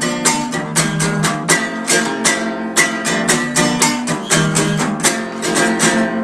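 Acoustic guitar strummed in a quick, even rhythm, about five strokes a second, ringing chords with no singing.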